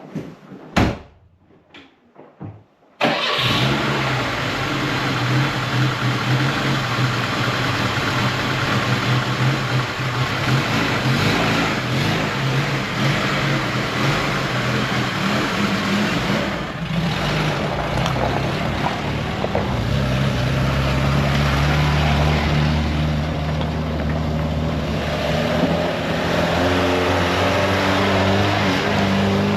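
A thump, then a car engine starts abruptly about three seconds in and keeps running, its pitch dropping and rising as it is revved.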